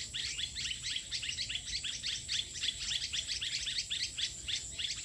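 A flock of birds chirping and tweeting together non-stop, a dense chorus of many short overlapping chirps.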